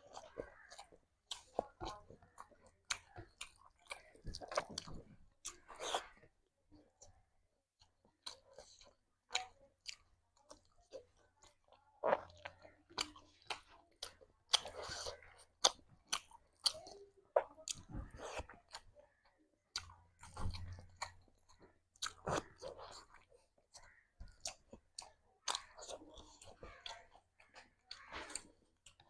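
Close-miked chewing and wet mouth sounds of a person eating rice and curry: irregular smacks and clicks, some in quick clusters.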